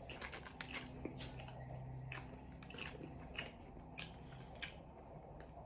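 A person chewing a mouthful of fried green bean fries: faint, irregular crisp crunches and wet mouth clicks, over a low steady hum.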